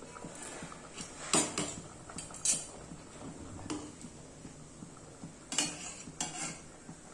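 Mustard fish curry bubbling at a boil in an iron kadai, with about five sharp clinks and knocks of kitchenware.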